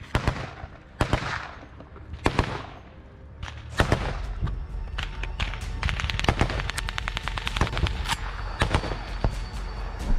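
Small-arms gunfire in a firefight. A few separate sharp shots with echoing tails come first, then from about four seconds in a dense run of rapid shots over a steady low rumble.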